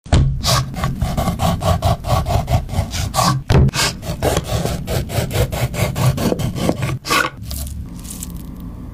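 A kitchen knife slicing again and again through a block of raw beef against a wooden cutting board, with chopsticks stopping each cut short for an accordion cut. Each stroke is a quick rasping scrape, about three to four a second, and the strokes stop about seven seconds in, leaving a low hum.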